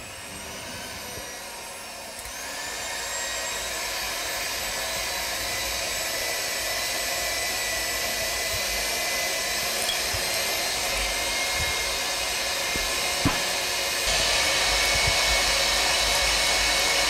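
Electric hand mixer running steadily, its beaters whisking egg yolks, sugar and Vin Santo into zabaione in a saucepan over a hot-water bath. The motor's whine rises in pitch over the first two seconds and gets louder about fourteen seconds in.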